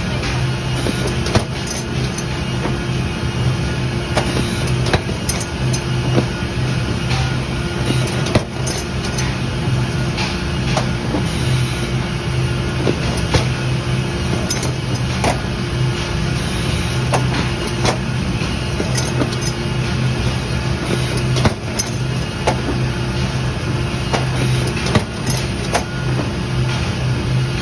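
Automated stacker and production-line machinery running: a steady low hum with frequent irregular clicks and knocks throughout.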